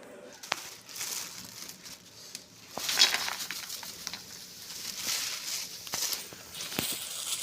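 Irregular rustling and crinkling handling sounds, loudest about three seconds in, with a few sharp knocks.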